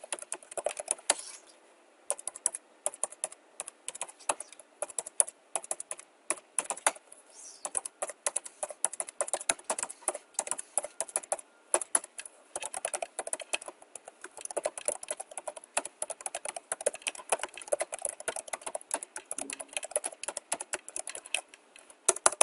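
Typing on a computer keyboard: runs of quick keystroke clicks, with a couple of short pauses.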